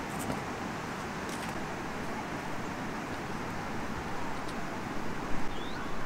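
Steady rushing outdoor noise of river water running over rocks, mixed with road traffic, with a few light knocks near the start and toward the end.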